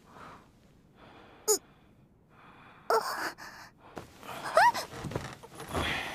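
A girl's voice making soft gasps and short breathy sounds: three brief pitched ones spaced about a second and a half apart, the loudest rising then falling in pitch, then a breath near the end.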